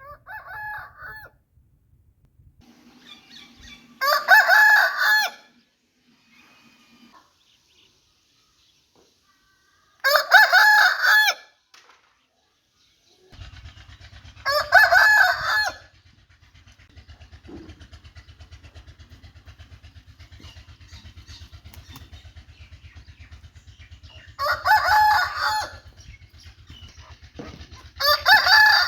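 Aseel roosters crowing: a short call at the start, then five loud, drawn-out crows spaced several seconds apart. From about the middle on, a steady low hum lies under them.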